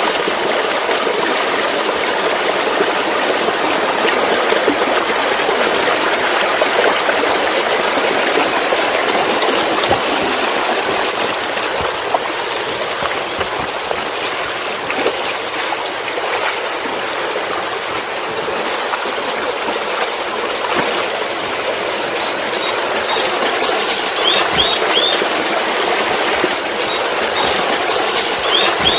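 Steady rush of falling water from a waterfall, an even hiss without breaks. A few short high chirps sound near the end.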